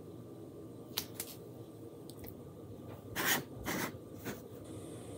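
Thin plastic craft transfer sheet handled by hand as it is folded and peeled back: a light click about a second in, then two short rustles of the sheet around three seconds in.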